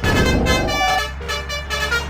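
Basuri musical air horns playing a tune of held notes that step in pitch, with a loud low rumble during the first second.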